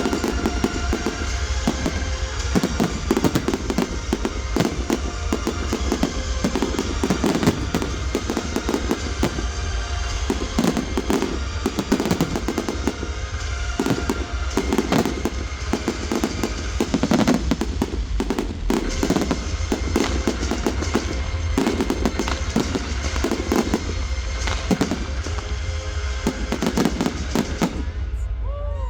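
Fireworks bursting in rapid, overlapping succession with crackling reports, over music playing along with the display. The barrage stops abruptly near the end.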